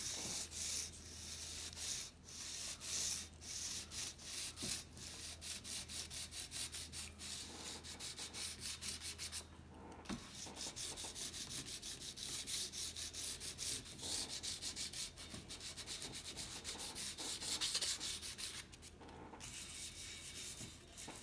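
Abrasive paper on a sanding block rubbed back and forth by hand over the painted steel tube of a vintage bicycle frame, in quick even strokes with a few brief pauses.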